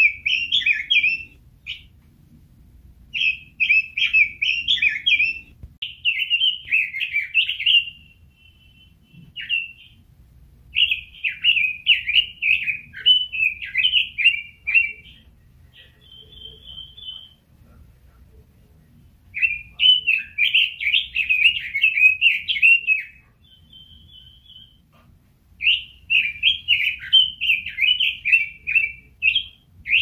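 Red-billed leiothrix (Pekin robin) singing: phrases of rapid, fluty warbling lasting one to four seconds, separated by short pauses. A few brief held whistled notes fall between the phrases.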